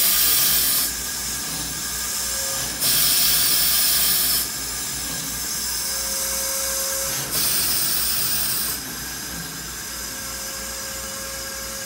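1919 50-ton railway steam crane running on compressed air instead of steam, with a steady mechanical hum. Three loud bursts of hissing air, each about a second and a half long: at the start, about 3 s in and about 7 s in.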